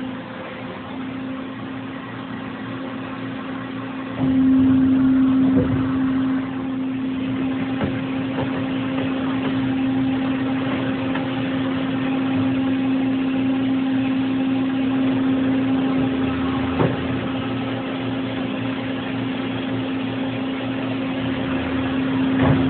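Okuma and Howa 550H horizontal machining center running: a steady mechanical hum with one strong held tone. It gets louder about four seconds in, and a few short clunks come later.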